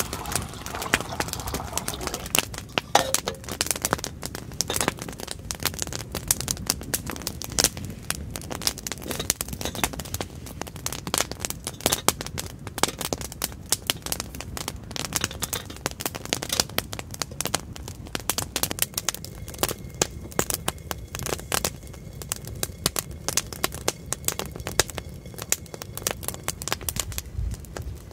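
Wood campfire crackling, with frequent sharp pops and snaps. In the first second, water pours into a metal camp kettle.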